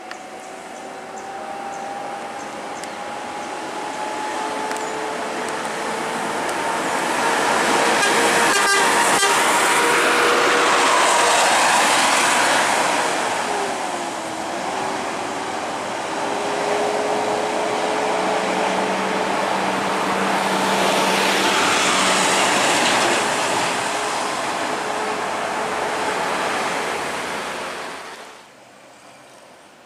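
Intercity bus's diesel engine running past up close, with a whining tone that slowly rises in pitch as the noise builds. The engine note dips briefly about halfway, then picks up again, and the sound cuts off suddenly near the end.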